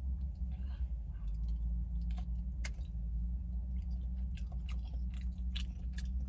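Close-up chewing of a soft KFC Famous Bowl eaten with a spoon, with scattered sharp clicks and a steady low hum underneath.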